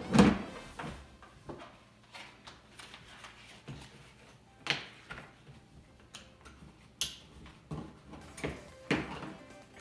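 Scattered knocks and clunks of items being handled and set down, one at the start, one near the middle and several close together near the end.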